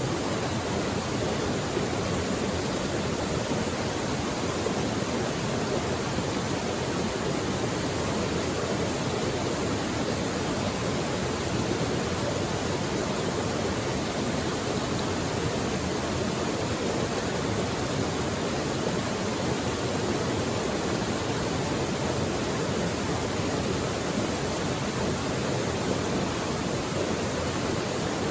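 Mountain creek flowing over rocks: a steady, even rush of water.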